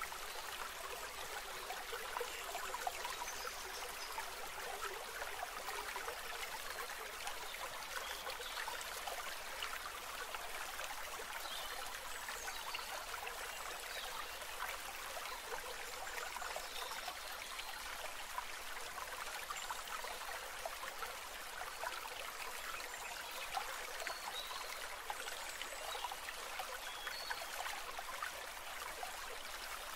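A steady, even sound of flowing stream water, a continuous rushing hiss that does not pause or change.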